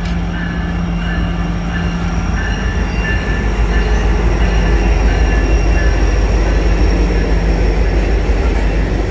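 Two diesel freight locomotives, led by Norfolk Southern's EMD SD70ACe 1069, passing close at the head of a loaded coal train: a steady engine drone and rumble of wheels on rail, loudest as the locomotives go by about four seconds in, then the hopper cars rolling past. A faint high tone pulses about twice a second through the first part.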